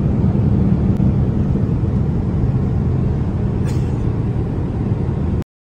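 Steady low rumble of a jet airliner in flight, heard from inside the passenger cabin: engine and airflow noise. It cuts off abruptly near the end.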